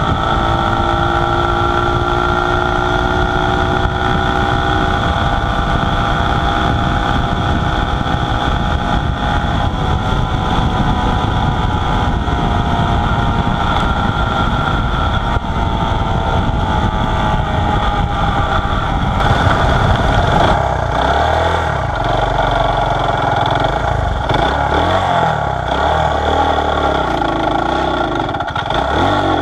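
1969 Honda SL90's single-cylinder four-stroke engine running at a steady cruise under heavy wind rush, its pitch sagging slowly. About two-thirds of the way through, the wind rush eases and the engine note wavers up and down as the bike slows.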